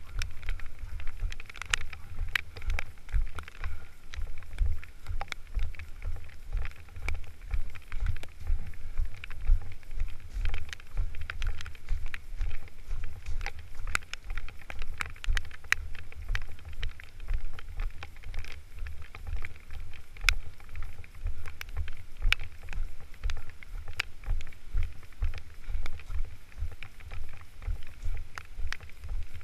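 Low, gusting rumble of wind and handling on the microphone, with scattered small clicks and rustles of movement.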